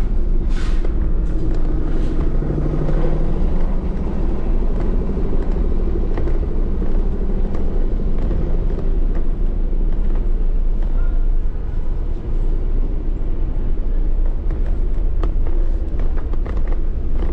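Car engine and tyre noise heard from inside the cabin while driving uphill: a steady low rumble.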